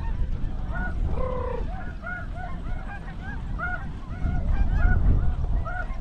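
Snow goose calls: a steady run of short, high honking yelps, many birds at once, over heavy wind rumble on the microphone that grows stronger about four seconds in.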